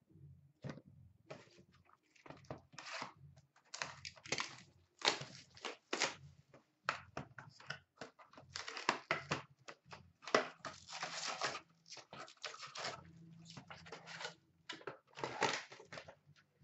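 Trading-card pack wrappers of 2018-19 Upper Deck SP Authentic hockey being torn open and crinkled, with cards handled, in irregular bursts of rustling.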